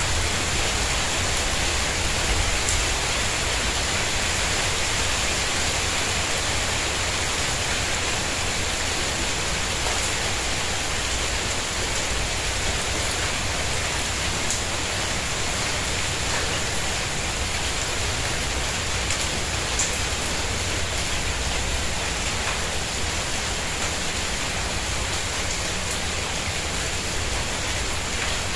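Steady rain falling on a tiled courtyard and its plants: an even, continuous hiss with a few sharper drop ticks.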